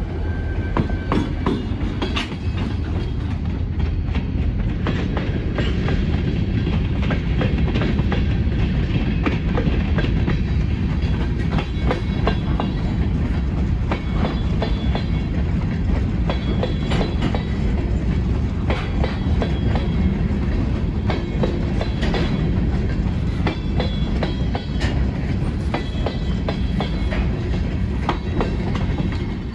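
Freight train cars rolling past, with a steady low rumble and the irregular clicking of wheels over rail joints.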